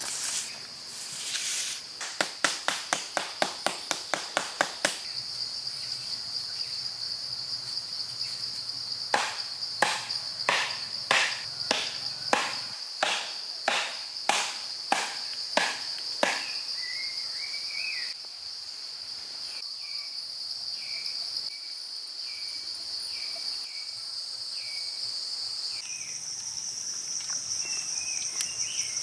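Shrill, steady insect drone, which steps up in pitch near the end. Over it come two runs of sharp knocks, a quick one of about three a second early, then a slower one of about one and a half a second, followed by short faint chirps repeating about once a second.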